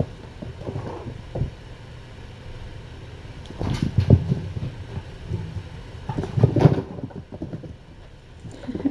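Kittens scampering and wrestling on the floor: irregular soft thumps and patter, with two busier flurries about four seconds and six and a half seconds in.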